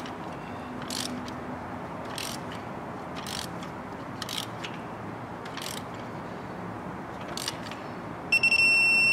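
Digital torque wrench being ratcheted to tighten a spark plug, a faint ratchet click about once a second with each return stroke. Near the end the wrench gives a loud, high-pitched beep, stuttering then held: its alert that the set torque of 13 ft-lb has been reached.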